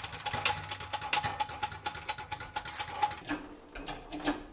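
12-ton hydraulic shop press being hand-pumped on its bottle jack as the die bends quarter-inch steel plate: a fast run of clicks that stops about three seconds in.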